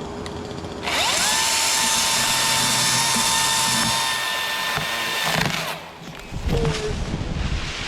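Battery-electric chainsaw spinning up from silence with a rising whine, cutting at a steady pitch for about four and a half seconds, then winding down. A few irregular knocks follow near the end.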